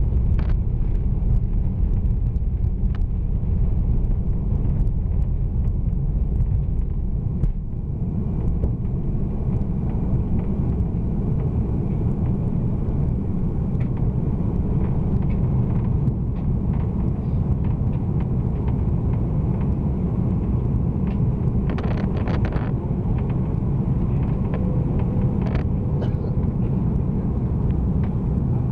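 Airbus A340 cabin noise at a window seat during takeoff and initial climb: a steady, loud low roar of the engines and airflow. A few faint clicks and one short hiss come about three-quarters of the way through.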